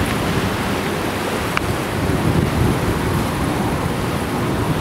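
Turbofan engines of an Airbus A320neo-family airliner running with a steady broad roar as it moves along the taxiway, the jet blast kicking up dust behind it.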